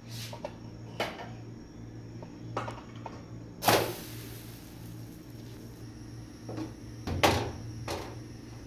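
An iron tawa knocking and clattering against a gas stove's burner grate over a steady low hum. The loudest knock comes about three and a half seconds in and is followed by a brief hiss, and another loud knock comes near the end.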